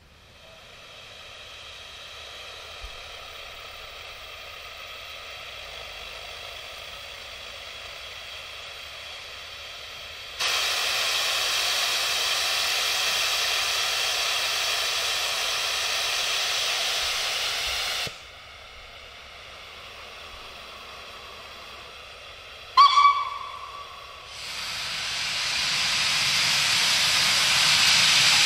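Steam hissing from LNER K4 Mogul locomotive 61994 The Great Marquess. It hisses steadily at first, then a much louder hiss of the safety valves blowing off runs for several seconds and stops suddenly. Near the end comes a brief whistle toot, followed by a rising loud hiss of steam from the open cylinder drain cocks.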